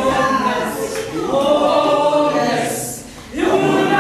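A group of voices singing together unaccompanied, with held notes and a brief break between phrases about three seconds in.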